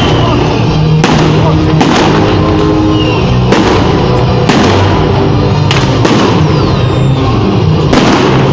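New Year fireworks going off over loud music, with sharp bangs about once a second and a high falling whistle about two-thirds of the way through.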